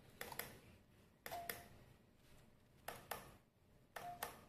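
Finger taps on the glass touch buttons of smart wall light switches: four pairs of quick clicks about a second apart, two of them with a short beep.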